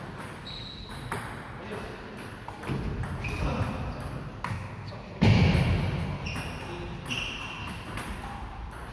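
Table tennis ball clicking off rubber bats and the table during a rally in an echoing sports hall, with short high shoe squeaks on the wooden floor. A sudden loud burst, heavy in the low range, comes about five seconds in.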